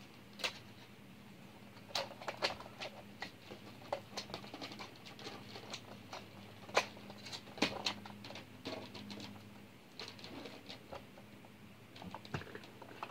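Irregular light clicks and taps of people moving about and handling things in a small room, two of them louder around the middle, over a faint steady low hum.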